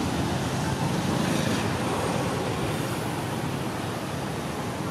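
Steady background rumble and hiss with no distinct events, of the kind road traffic makes.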